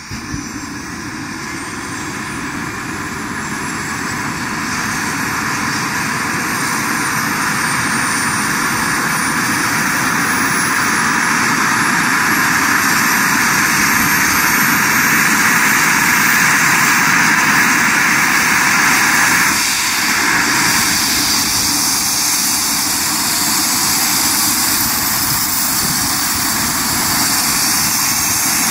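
Eurocopter EC135 air-ambulance helicopter running up on the ground: a turbine whine climbs in pitch as the rotor noise swells over the first dozen seconds or so, then settles into a steady run.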